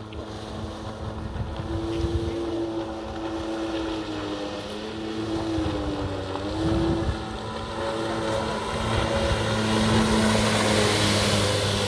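Jet ski engine running, its pitch dipping about six seconds in and then coming back up, getting louder toward the end, with a hiss of wind or spray.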